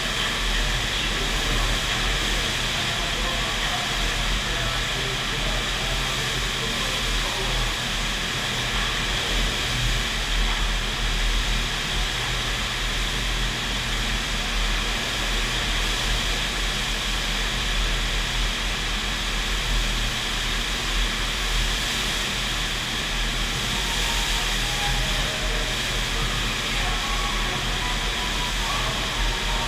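Steady rushing of a FlowRider wave machine's pumped sheet of water streaming up the wave surface, a dense continuous noise with a deep low rumble beneath.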